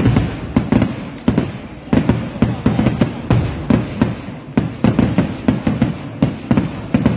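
Kerala temple-festival fireworks (vedikettu): a rapid, irregular barrage of loud bangs, about three a second, each trailing off in a short low rumble.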